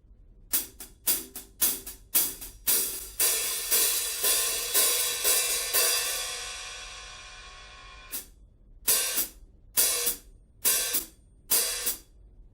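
Kingdo cymbal being struck with a stick: a run of quick strikes in the first half that rings out and fades away, then about five short, sharp strikes, mostly in quick pairs, each cut off quickly.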